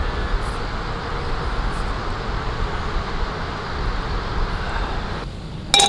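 Steady outdoor rushing noise with an uneven low rumble. It cuts off abruptly about five seconds in, and near the end there is a single sharp, ringing clink.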